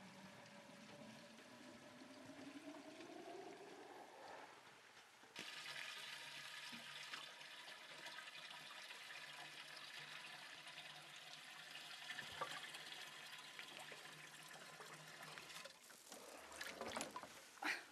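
Water running from a water tanker's hose into a container, its pitch rising as the container fills. About five seconds in it changes to a steadier rush of flowing water, and near the end there is splashing as a plastic watering can is dipped into a barrel of water.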